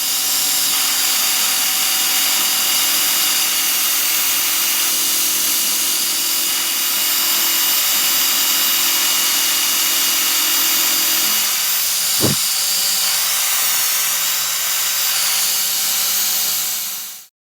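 Power tool running steadily with an even whirring noise, most likely the lathe turning, with a brief sweep in pitch about twelve seconds in. The sound cuts off abruptly near the end.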